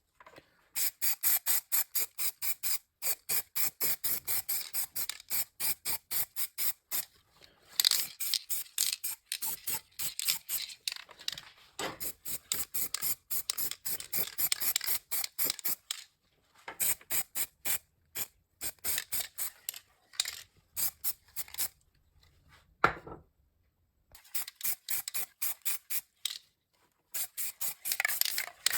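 Rapid back-and-forth scraping strokes by hand, about four or five a second, in runs of a few seconds with short pauses: a part of an old hand drill being rubbed down with an abrasive.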